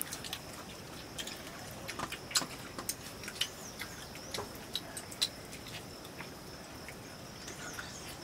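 Light, irregular clicks and taps of fingers and a spoon against steel plates while eating rice. Behind them runs a steady high-pitched whine, with a few faint chirps.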